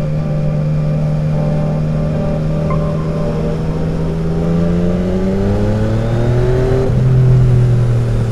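Yamaha XSR900's inline-three engine through an SC Project 70s conical exhaust, heard from the rider's seat while riding: the engine pulls under throttle with its revs climbing steadily, then eases about seven seconds in.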